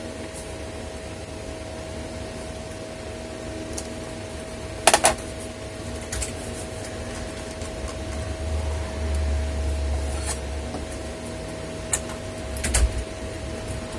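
Steady hum of a room fan, with a few sharp taps and clicks of a metal tool and fingers against a laptop's plastic base as small screw-hole covers are pressed back in.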